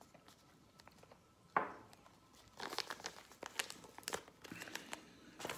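A single sharp knock, then a plastic stand-up supplement pouch crinkling and crackling as it is handled and opened.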